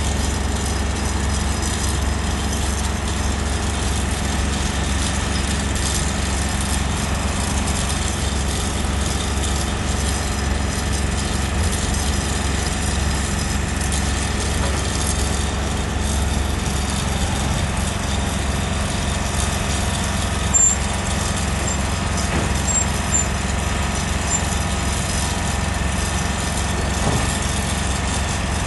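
Haulotte H21TX boom lift's diesel engine running steadily with a deep, low hum, with one short click about twenty seconds in.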